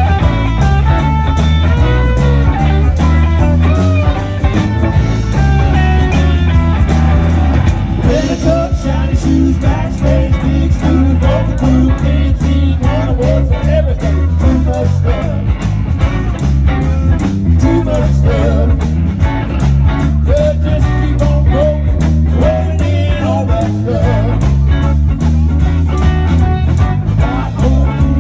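Live band playing with amplified electric guitars and bass over a steady drumbeat, with singing.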